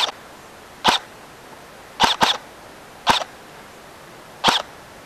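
Airsoft electric rifle (a DYTAC LVOA M4 SBR AEG) firing single shots: six sharp cracks about a second apart, two of them in quick succession about two seconds in.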